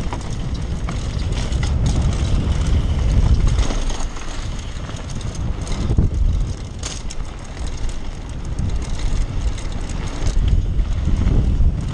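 Downhill mountain bike descending a rough dirt trail at speed: wind buffeting the action camera's microphone as a steady low rumble, with the tyres, chain and frame rattling and knocking over the bumps.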